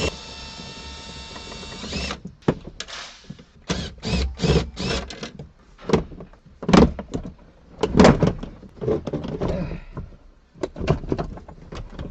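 A Tesla's dashboard being worked loose and pulled out of the car: a power tool's steady whine for about two seconds, then a long string of irregular clunks and knocks.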